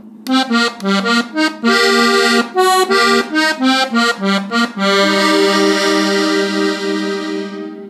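Hohner diatonic button accordion in F playing a norteño melody in B-flat: a quick run of short, separate notes, then a chord held for about three seconds that fades out near the end.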